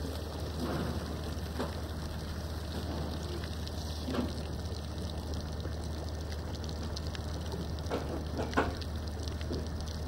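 Water splashing and dripping against a ship's hull as a rescue net with a person in it is lifted out of the sea, over a steady low hum, with a few short knocks, two of them close together near the end.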